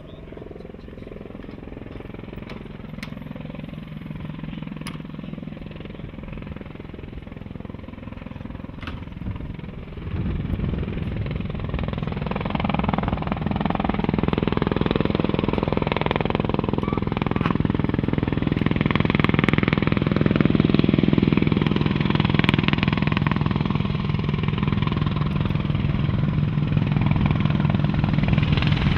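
AH-64 Apache attack helicopter approaching and coming in low and close, its rotor beat growing steadily louder, with a sharp jump in loudness about a third of the way through.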